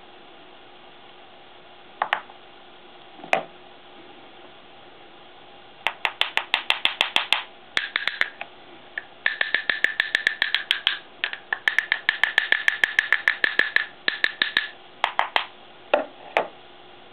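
A glazed ceramic piece rapidly tapped with a wooden tool handle, in quick runs of about seven light taps a second, each with a brief ringing note. Two single taps come first. The tapping knocks loose gold powder off the piece.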